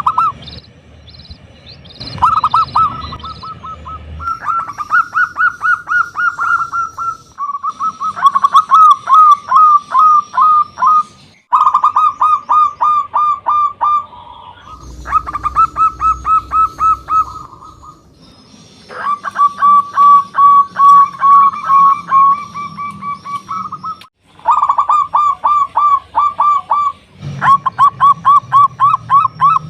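Zebra doves (perkutut) cooing: phrase after phrase of rapid, evenly spaced notes, each phrase a few seconds long with short pauses between them. Fainter, higher chirping runs alongside.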